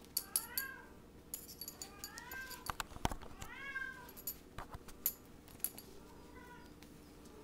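Kitten mewing: about four short, high calls, each rising then falling in pitch, the loudest about halfway through. Sharp clicks and a single heavier thump fall between the calls as the kitten plays on the tile floor.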